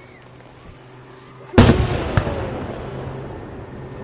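A large aerial firework shell bursting with a single loud bang about a second and a half in, its boom rolling on and echoing for a couple of seconds as it fades.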